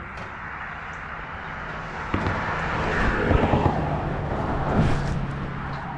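A road vehicle passing close by: engine hum and tyre noise swell to a peak around the middle and then ease off.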